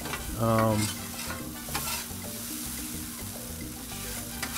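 Diced potatoes sizzling in oil on a Blackstone griddle's steel flat top, while two metal spatulas scrape and clack against the surface as they toss and turn them. The potatoes are browning and almost done.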